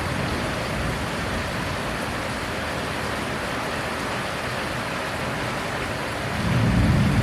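Heavy rain falling steadily. A low rumble of thunder swells near the end.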